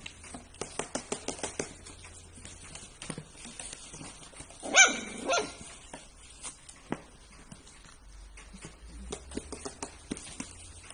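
A dog barks once loudly about five seconds in, with a shorter, weaker bark right after. Earlier there is a quick run of sharp clicks or taps, and a few scattered clicks follow.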